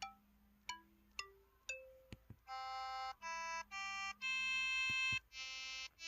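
KTF-X3500 mobile phone's keypad button tones: a run of single electronic notes, one per key press. The first few are short and fade quickly; from about halfway on they are held, reed-like notes.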